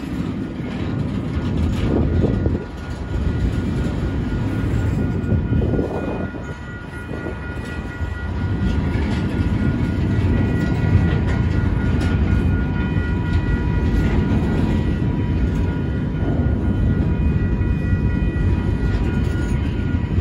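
Freight train of double-stack intermodal well cars rolling past, a steady heavy rumble of wheels on rail, with thin steady high-pitched tones above it for the second half.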